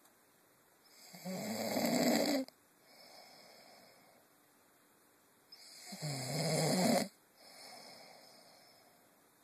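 A man snoring heavily in his sleep: two loud snores about five seconds apart, each building up and cutting off abruptly, with a softer breath after each.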